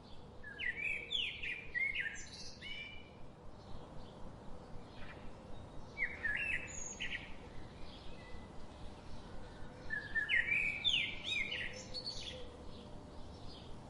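A songbird singing three loud phrases of quick, sliding whistled notes, about four seconds apart, with fainter calls from other birds in between.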